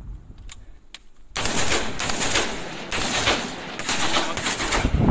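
Gunfire from automatic rifles at close range, in rapid bursts that start about a second and a half in, with a couple of faint cracks before them.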